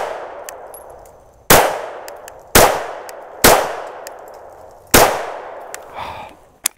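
Canik Rival 9mm pistol fired four times at uneven intervals of about one to one and a half seconds, each shot trailing off in a long echo, with the echo of a previous shot dying away at the start. A small click comes near the end.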